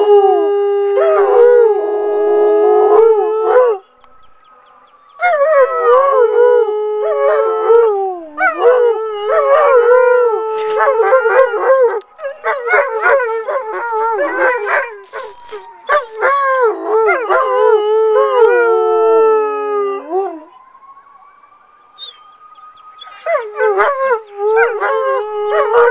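Two Alaskan Malamutes howling together in long, wavering, overlapping howls, with a short break about four seconds in. A faint siren wails slowly up and down beneath them and is heard almost alone for a couple of seconds near the end before the howling starts again.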